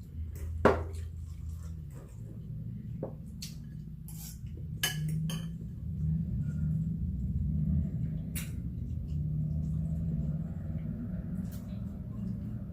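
Cutlery clinking against a plate or bowl during eating, several separate sharp clicks, the loudest about a second in, over a low steady hum.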